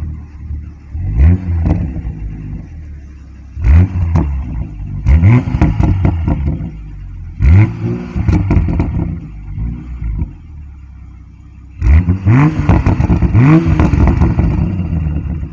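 A 2020 Toyota Supra's turbocharged 3.0-litre BMW inline-six, heard at its stock twin exhaust tips, is revved repeatedly while stationary. It idles between sharp blips that rise in pitch, with a longer run of revs near the end.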